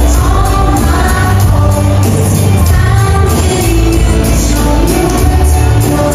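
A song with singing, strong bass and a steady beat, playing loud and continuously.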